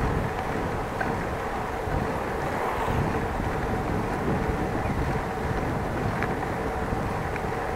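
Steady wind rush and rolling noise from a moving bicycle, buffeting the microphone, with a faint steady hum.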